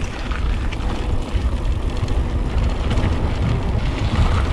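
Steady wind rumble on the microphone of a mountain bike rolling fast down a steep dirt drop, with tyre and trail noise underneath.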